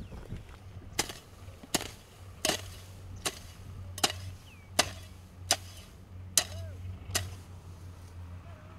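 Rhythmic chopping strikes of a hand hoe cutting into dry soil while weeding, about nine blows roughly three quarters of a second apart, over a steady low hum.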